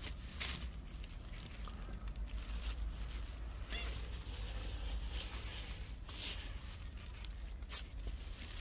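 Plastic bags rustling and crinkling in short bursts as cat food is handled, over a steady low rumble.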